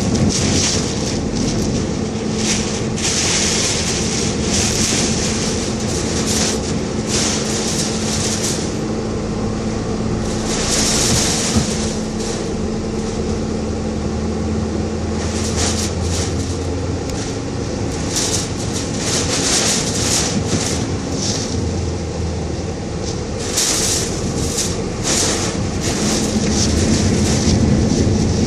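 Car being driven through a typhoon storm: a steady drone of engine and road noise, broken by irregular hissing surges as gusts of wind and rain hit the car.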